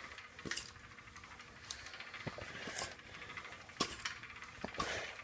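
Unpowered ceiling fan spun by hand and turning freely: faint, irregular light clicks and a few soft swishes.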